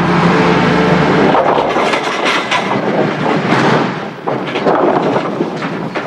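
Loud building-site noise: a jumble of bangs, knocks and clatter, coming in as music fades out in the first second or so.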